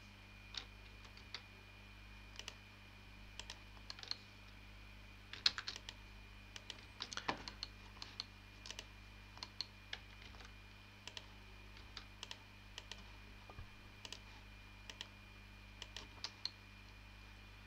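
Irregular computer mouse clicks and keyboard keystrokes, single clicks and short quick runs, over a faint steady hum.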